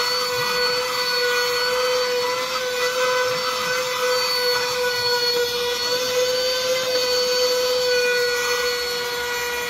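Vacuum cleaner running steadily, its motor giving a constant high whine over a rushing hiss, while it is used to vacuum a dog's coat.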